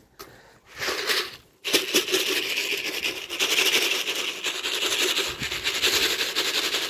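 Wings of a flock of domestic pigeons flapping close overhead: a dense clatter of many rapid wingbeats. A short burst comes about a second in, and the full rush starts suddenly just under two seconds in.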